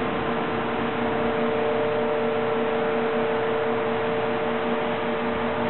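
Industrial machinery running steadily: a constant hum with one strong, steady tone, and a lower tone that pulses on and off.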